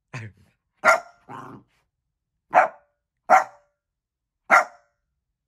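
Small shaggy terrier-type dog barking: about six short single barks, unevenly spaced, one of them lower and quieter.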